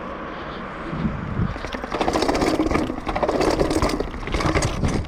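Mountain bike being ridden over rough ground: a steady rumble of tyres with rattling and clicking from the bike, busier from about two seconds in.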